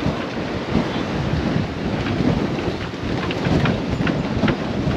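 Strong wind buffeting the microphone over the rush and splash of waves along the hull of a sailboat heeled hard in a blow, the level surging unevenly.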